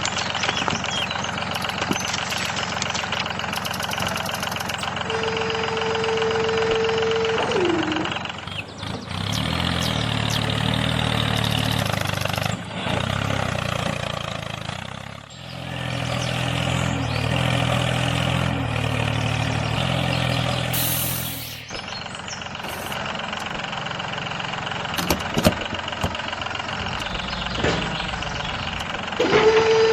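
Small motor of a homemade mini tractor running, with a high steady whine that drops in pitch and cuts out about eight seconds in. A lower rumble then runs until about twenty-two seconds in, with a short break near the middle.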